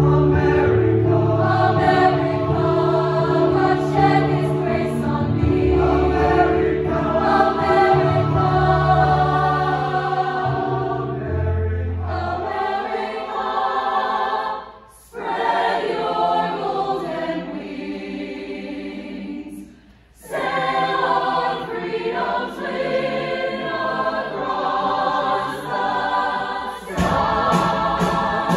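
Mixed-voice show choir singing in harmony, with low sustained notes underneath that drop away about twelve seconds in. The singing breaks off briefly twice, then a fuller, louder section starts near the end.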